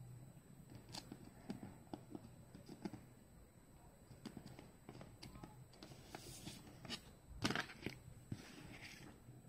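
Faint clicks and light taps of a plastic CD jewel case being handled, with a louder clack about seven and a half seconds in and a couple of short soft rustles.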